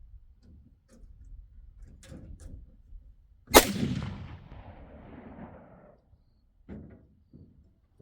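A single gunshot about three and a half seconds in, with a long echo that fades over about two seconds. A few faint clicks come before and after it.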